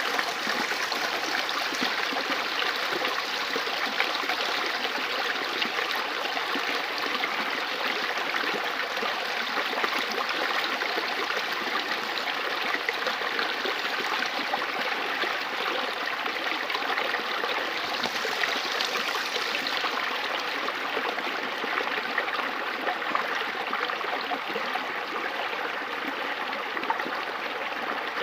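River water flowing and splashing steadily over rocks, an even rushing with fine trickling detail.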